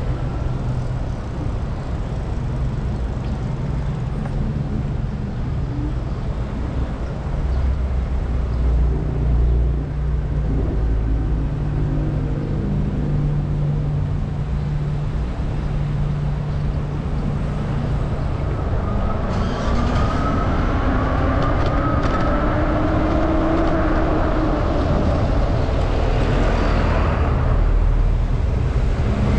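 Road traffic: a steady low rumble, with a motor vehicle's engine note rising as it accelerates during the last third.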